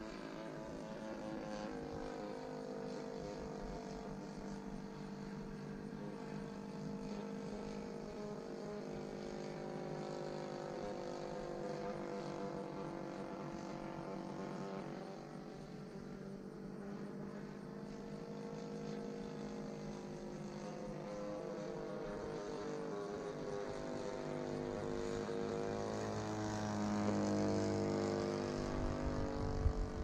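Engine and propeller of a Seagull Models Nieuport 28 radio-control scale model plane running in flight. The drone rises and falls in pitch as the plane passes, and grows louder near the end as it comes closer.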